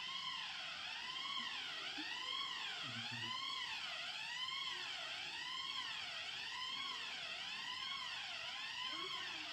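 Electronic fire alarm sounding continuously: a tone that sweeps up and down about once every three-quarters of a second, repeating steadily.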